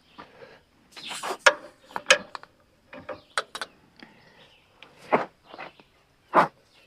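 Wrench and socket working the blade-tension bolt of a Frontier OS27 band sawmill: a scatter of short metallic clicks and clunks as the blade is brought up to tension.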